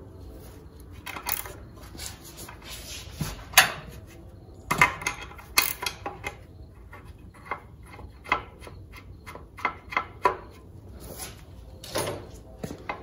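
Irregular metallic clinks, taps and short scrapes of parts and tools being handled inside a Chrysler A-904 automatic transmission's aluminium case during teardown. The loudest knock comes a few seconds in, and a run of small quick ticks follows later.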